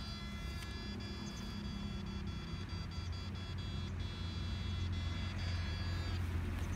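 Electric fish-shocker whining with a high steady tone and scattered clicks, cutting off a little before the end, over a low steady hum.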